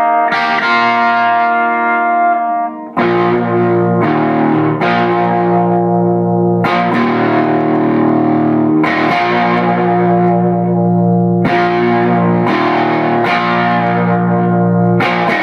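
Electric guitar played through a Kool & Elfring Straight 8 amplifier: chords strummed and left to ring, a new chord struck every second or two, fuller and lower from about three seconds in.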